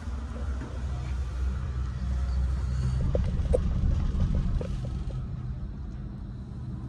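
Steady low rumble of a moving cable car gondola cabin, with a few light clicks between about three and four and a half seconds in.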